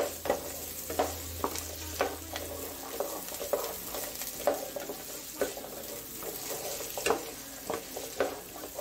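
Whole shallots, green chillies and curry leaves sizzling in hot oil while being stirred in a pan, with the spatula scraping and knocking against the pan about once a second; the onions are being sautéed toward golden brown.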